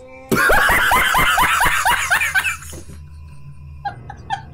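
A loud burst of laughter: quick repeated 'ha' syllables, about four a second, each falling in pitch, dying away a little under three seconds in. Near the end a quieter, steady rhythm of short pitched blips starts.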